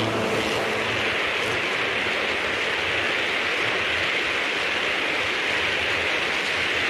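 Steady rolling hiss of LGB G-scale tank cars' wheels running on the track as the cars pass close by.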